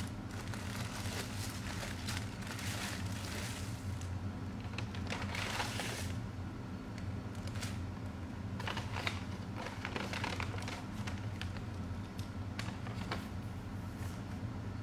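Paper rustling and crinkling in irregular bursts as a Whataburger paper bag and its paper wrappers and fry carton are handled, over a steady low hum.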